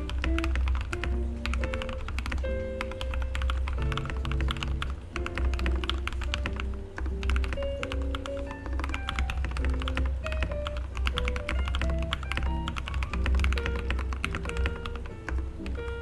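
Continuous fast typing on a Royal Kludge RK100 mechanical keyboard with lubed red linear switches, a two-layer tape mod and foam under the PCB: a dense, irregular run of key clacks. Background music with a steady bass plays under the typing.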